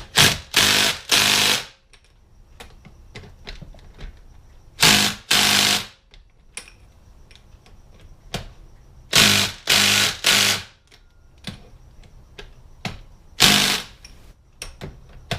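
Impact gun hammering in short bursts of about half a second, in groups of two or three with pauses between, running bolts in by feel rather than to a set torque.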